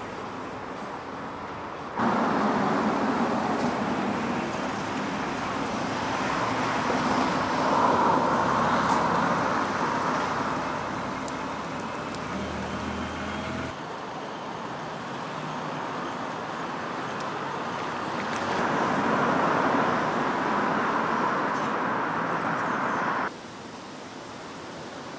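City street traffic: cars passing, building to a pass twice and fading, over a steady background hum of the street. The background jumps suddenly in level three times, where separate recordings are cut together.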